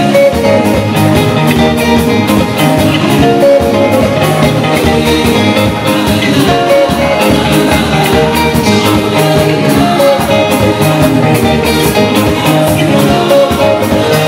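Live band playing upbeat dance music: electric guitar and drums over a steady beat, with women singing.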